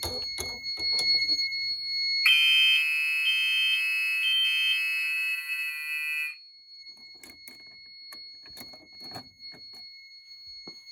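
Fire alarm horn strobes (Gentex horns) sound together loudly for about four seconds and then cut off suddenly: zone 1 is tripped with the panel in audible walk test, which sounds the notification appliances only briefly. A steady high beep from the panel, which is in trouble, runs underneath, with clicks and knocks of handling the devices before and after the horns.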